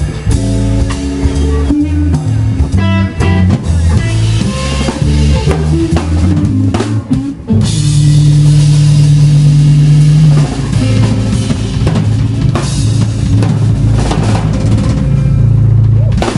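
Live instrumental band of electric guitar, bass guitar and drum kit playing loudly with busy drum fills. About halfway through the band lands on a long held chord under washing cymbals.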